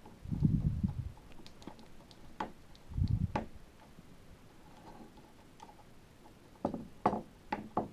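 Screws on an airsoft rifle's trigger box being loosened with a hand tool: scattered sharp metal clicks and a few dull knocks as the tool and rifle are handled, with a cluster of clicks near the end.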